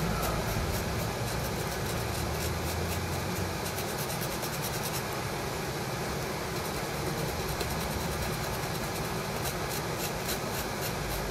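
Fiberglass scratch pen scrubbing corroded solder pads on a circuit board: a fast, dry scratching in quick strokes, heard over a steady fan hum. The scratching stops about five seconds in and starts again near the end. It is cleaning off surface corrosion back to bare copper so that solder will take.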